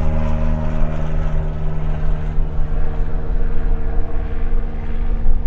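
Rutan Long-EZ's rear-mounted pusher engine and propeller idling steadily on the ground, a constant low hum.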